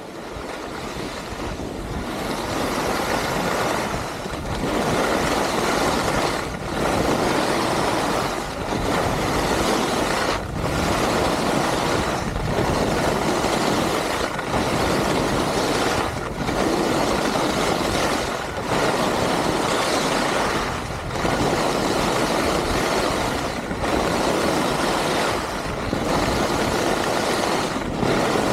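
Skis or snowboard edges scraping on snow through a run of linked turns. The noise dips briefly about every two seconds between turns.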